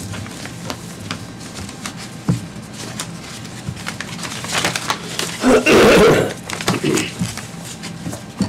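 Light clicks and rustling of papers being handled near a table microphone over a steady low room hum. About five and a half seconds in comes a loud, rough noise lasting under a second.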